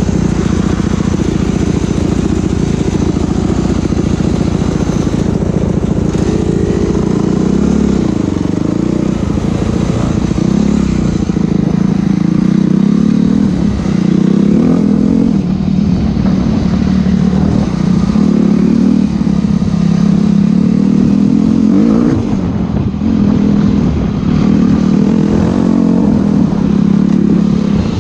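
Enduro motorcycle engine running under load, its pitch rising and falling over and over as the throttle is opened and closed.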